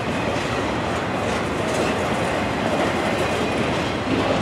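Freight train's container flatcars rolling past, the steel wheels running steadily over the rails.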